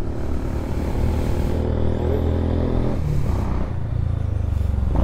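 Royal Enfield Himalayan motorcycles' 411 cc single-cylinder engines idling with a steady low thrum. The sound changes about three seconds in.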